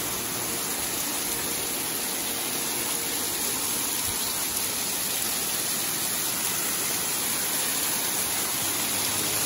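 A small waterfall close by, splashing down a rock face onto the rocks below in a steady rush of falling water.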